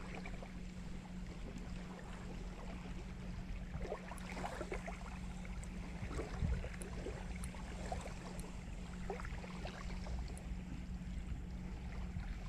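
Small waves lapping and trickling on a pebble shoreline, over a steady low rumble of wind on the microphone.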